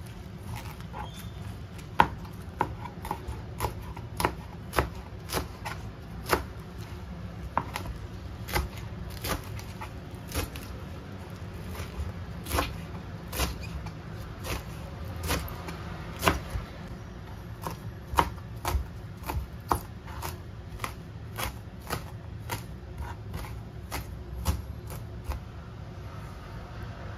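Kitchen knife chopping sweet potato leaves on a plastic cutting board: sharp knocks of the blade striking the board, irregular, about one or two a second.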